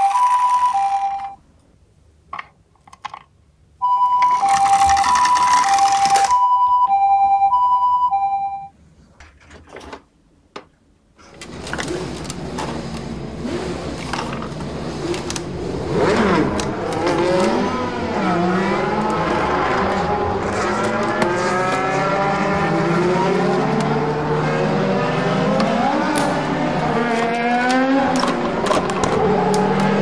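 A toy ambulance plays an electronic two-tone 'pee-po' siren, the Japanese ambulance alternation, in two bursts ending about a second and a half in and again between about four and nine seconds. After a short pause, from about twelve seconds, a toy race car plays a dense run of engine-revving sound effects with constantly sliding pitches.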